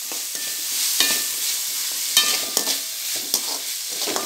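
Chopped vegetables and tomato sizzling in oil in a metal kadai while a metal slotted spoon stirs them, scraping and tapping against the pan every second or so. The tomatoes are being sautéed until soft.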